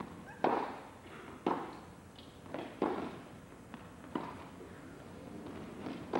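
Tennis ball being struck back and forth by rackets in a baseline rally: a series of sharp hits about a second apart, with fainter bounces between, each ringing briefly in an indoor arena.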